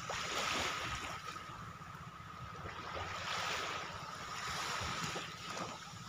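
Small sea waves washing onto the shore, the wash swelling twice, with wind rumbling on the microphone.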